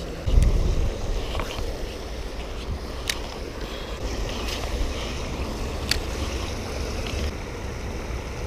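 Wind rumbling on the microphone, strongest briefly about half a second in, with a few faint sharp clicks.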